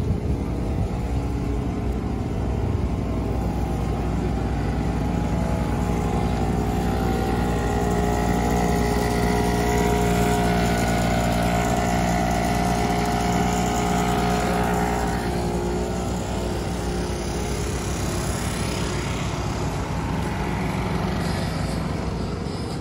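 A large engine droning steadily, growing louder toward the middle and easing off again, like a vehicle or vessel passing.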